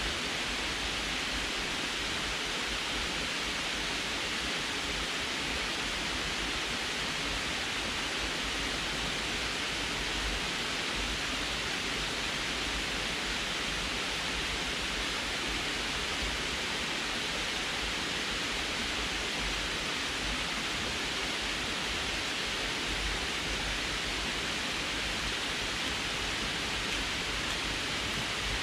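Water pouring steadily over a sloped concrete dam spillway into the pool below: an even, unbroken rush.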